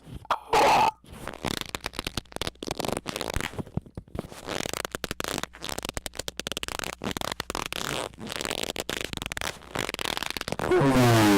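A short loud burst, then a long run of rapid, irregular crackling clicks and rasps, ending with a loud squeak that slides up in pitch.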